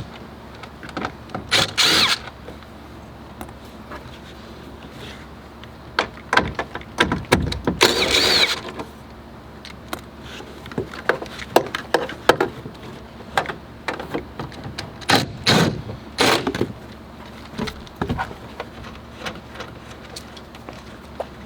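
Scattered clicks, knocks and rattles of a socket wrench and loose parts as the 11 mm nuts holding a car tail light are undone, with a few louder scraping stretches about 2, 8 and 15 seconds in.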